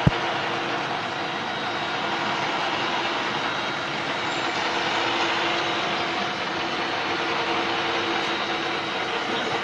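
Metal-cutting machine running steadily: a dense, even hiss and rush of cutting with a few faint steady tones through it. A sharp click comes right at the start.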